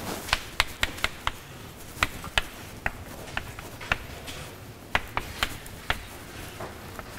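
Writing on a lecture-hall board: about a dozen irregular sharp taps over several seconds, with faint room noise behind.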